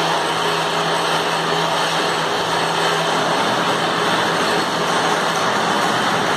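Metal lathe running, a steady loud machining noise; a low steady hum underneath stops about three seconds in.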